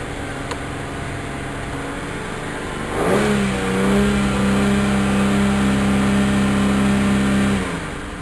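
2008 Holden Commodore's 3.6-litre V6 running at about 3000 rpm, then revved up about three seconds in and held steady at about 4000 rpm, dropping back near the end, heard from inside the cabin.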